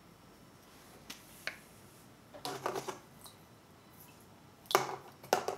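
Light clicks and taps of a paintbrush and painting gear handled against a paint palette and tray: two faint clicks about a second in, a small cluster mid-way, and the loudest pair of taps near the end.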